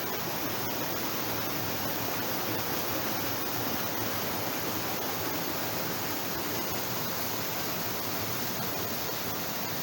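Mitsugama Falls pouring into its plunge pools: a steady, unbroken rush of falling water.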